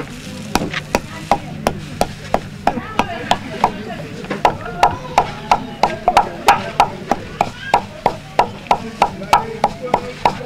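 Wooden pestle pounding dried ingredients in a wooden mortar: a steady rhythm of dull knocks, about three a second.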